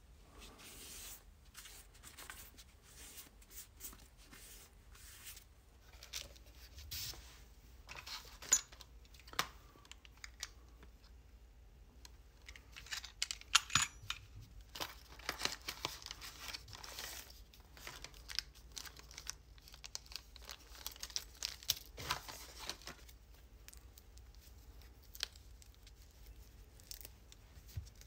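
Hands unpacking and handling a quartz clock movement kit: plastic and card packaging crinkling and tearing, with scattered small clicks and taps as parts are set down. The sounds come on and off and are busiest in the middle.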